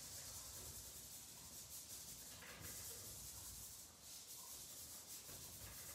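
Faint rubbing of a hand sweeping over paper, smearing colour in with the palm and fingers, with a brief lull about four seconds in.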